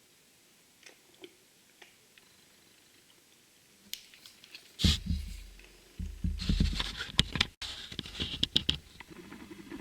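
Handling noise: a few light clicks, then from about five seconds in, bumps, knocks and rustling close to the microphone, as of parts or packaging being moved about.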